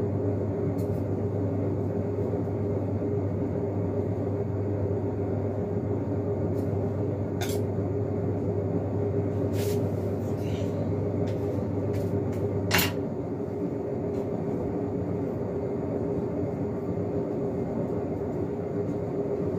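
Steady low machine hum in the room, with a few light clicks. About thirteen seconds in the deepest part of the hum cuts off with a click.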